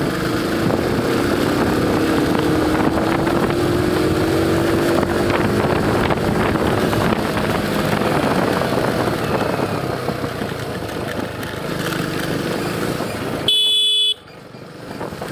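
Small motorcycle engine running under way with heavy wind and road noise, its note rising over the first few seconds as it accelerates. Near the end a short horn-like tone sounds, then the sound drops away suddenly.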